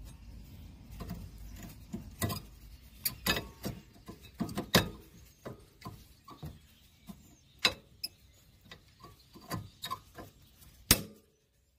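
Irregular light clicks and knocks of a disc brake pad being pushed by hand back into its seat in an Aixam microcar's brake caliper, a few sharper clicks among them as the pad snaps into place.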